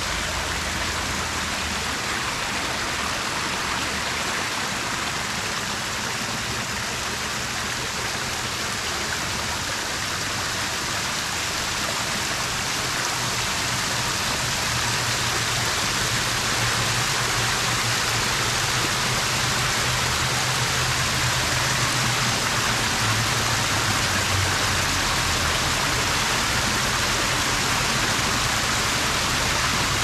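Water spilling and splashing down a tiered stone waterfall into a shallow pool: a dense, steady hiss that grows a little louder in the second half.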